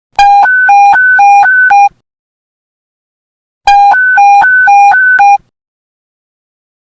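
Police radio panic-button emergency alert tone: a loud electronic two-tone beep alternating quickly between a low and a high pitch, in two bursts of under two seconds each, separated by a pause of about two seconds.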